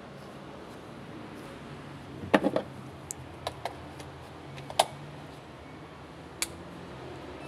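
A scattered run of sharp clicks and knocks: a quick cluster of three loud ones a little over two seconds in, a few lighter ones after, another loud one near five seconds and a single sharp click about six and a half seconds in, over a low steady hum.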